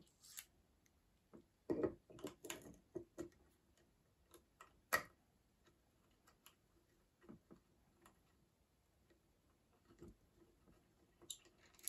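Faint, irregular clicks and taps of an Allen driver, M4x20 screws and the rotation piece against the rotary attachment as the piece is fitted and screwed on. The sharpest click comes about halfway through.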